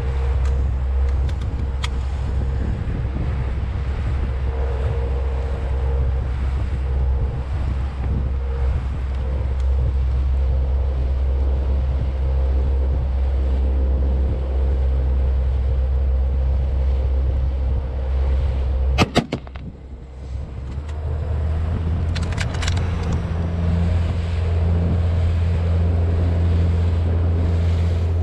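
A small motorboat's engine running steadily at speed, with wind buffeting the microphone and water rushing past the hull. About two-thirds of the way through there are a few sharp knocks and the drone briefly drops before it picks up again.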